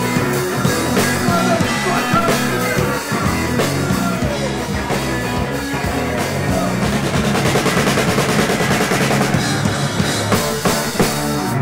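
Live rock band playing an instrumental passage loudly: a drum kit hit hard over electric guitar and bass. In the second half the drums build into a fast run of hits under washing cymbals.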